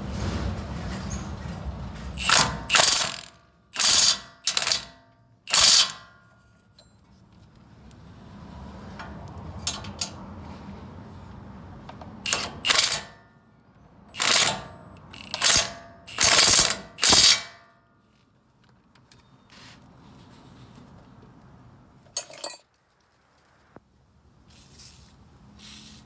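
Ratchet wrench clicking in short bursts of quick strokes, in two runs a few seconds apart, as a fastener is worked on a vehicle's front steering knuckle.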